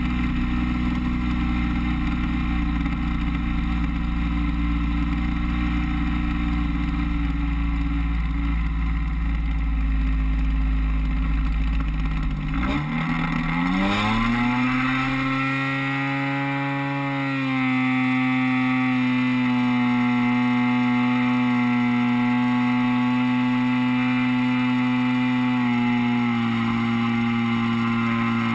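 DLE 30 single-cylinder two-stroke gas engine of an RC Beaver floatplane, heard from on board: running steadily with wind rush on the microphone, then about halfway through throttled up, its pitch rising quickly to a higher steady drone at full power for a touch-and-go takeoff run and climb.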